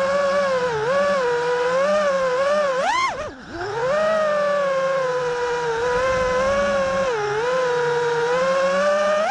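5-inch FPV freestyle quadcopter's brushless motors and propellers whining, the pitch following the throttle: a sharp rise about three seconds in, a brief throttle chop straight after, then a steady high whine with small dips.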